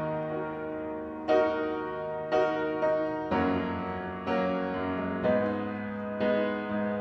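Grand piano playing sustained chords, a new chord struck about once a second, with no voice over it.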